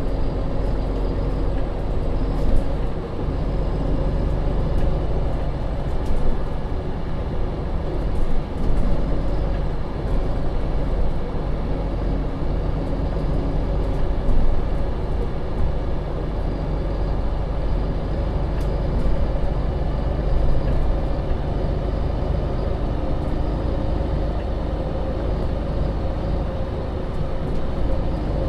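Cabin sound of a 2015 MAN Lion's City (NL 283) city bus on the move: its engine and drivetrain give a steady drone with a whine in it that shifts in pitch now and then, and a few short knocks and rattles from the body.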